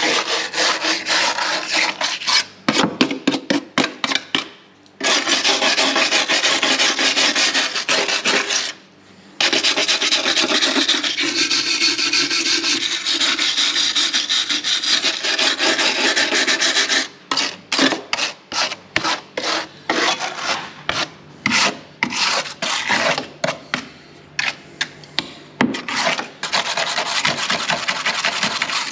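A hand scraper scraping caked road dirt off the steel inner wing and wheel arch of a Volkswagen T4 van. It is worked in quick short strokes, with long unbroken scraping runs in the middle and two brief pauses.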